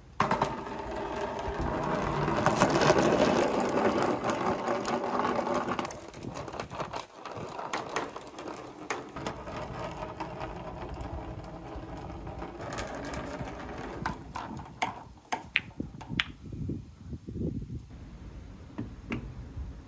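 Three small balls rolling down a plastic rain-gutter marble run, a steady rumble that is loudest for the first six seconds and then runs on quieter. A run of sharp clacks comes in the last few seconds.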